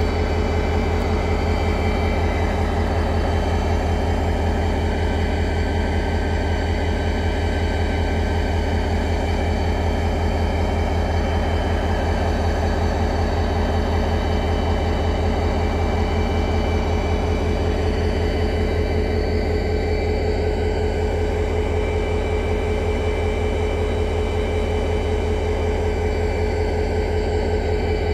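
Danish-built MZ class diesel-electric locomotive with an EMD 645 two-stroke diesel engine, standing and running steadily with a deep, even drone and a steady whine above it.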